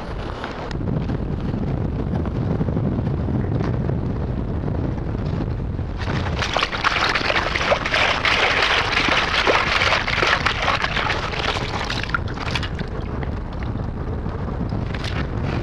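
Wind buffeting the microphone. About six seconds in, a perforated stainless-steel sand scoop is swished through a shallow puddle of seawater to sift out the sand, splashing and sloshing for about six seconds before it eases off.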